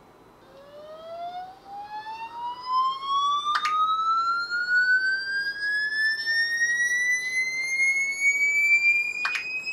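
A single electronic tone played through a smartphone speaker, rising slowly and steadily in pitch from low to high over about nine seconds, getting louder in the first few seconds: a high sweeping tone meant to make a dog react. Two short knocks sound partway through and near the end.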